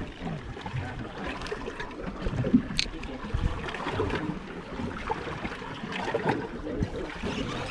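Sea water lapping and splashing against the hull of a fishing boat on choppy water, with one sharp click about three seconds in.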